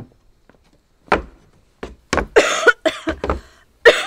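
A knock about a second in, then a run of harsh coughs in quick succession: a person coughing at a foul stench.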